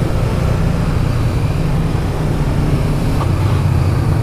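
Motorcycle engine running steadily at low road speed, a constant low drone with road noise.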